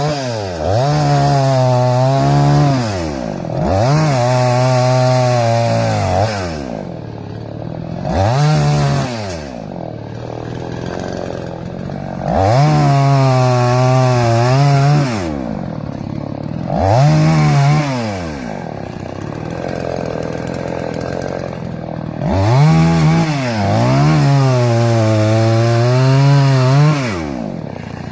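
Two-stroke chainsaw revved up to full speed about six times, each burst lasting one to three seconds, its pitch rising sharply and falling back to a lower, quieter run between bursts.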